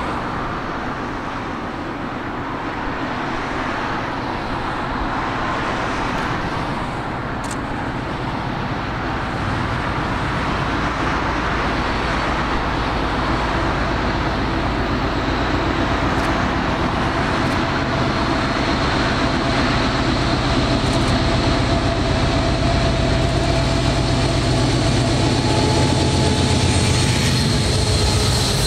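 Two Class 56 diesel locomotives running in multiple, their Ruston-Paxman V16 engines growing steadily louder as they approach and pass close by near the end.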